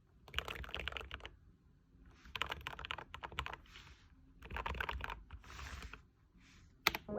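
Short bursts of fast typing on a mechanical keyboard with lubed and filmed JWK Magic Girl switches: three runs of rapid keystrokes, each about a second long, with softer rubbing sounds between them and a single sharp click near the end.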